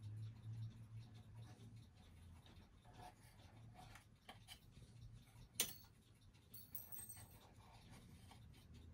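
Faint handling noise of fingers working among the wooden and foam packing blocks inside a cuckoo clock case: light rubbing and small clicks, with one sharp click a little past halfway.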